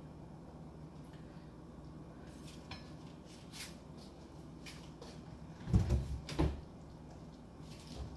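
Kitchen handling sounds: a few light clicks, then two loud thumps close together about six seconds in, over a low steady hum.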